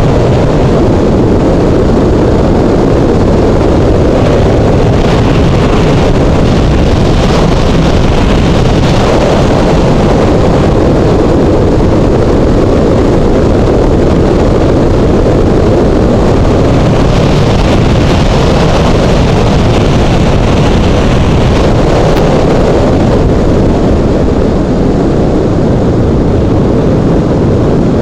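Loud, steady wind rush on the microphone of a moving motorcycle, with the Honda CBR600's inline-four engine running underneath at an even cruising speed.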